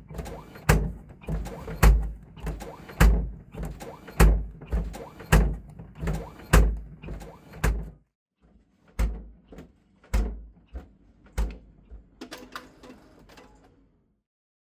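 Foley sound effects: a run of heavy thumps at an even pace, about one a second, for the first half. After that come lighter, scattered knocks and clicks.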